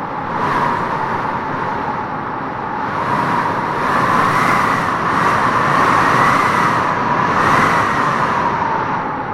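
Howling wind gusting through trees: a steady rush with a wavering, whistle-like howl that swells in the middle and eases off near the end.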